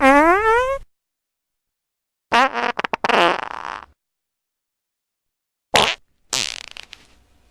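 A run of separate fart sounds cut apart by dead silence: a short one rising in pitch at the start, a longer, sputtering one about two seconds in, then two brief ones near the end.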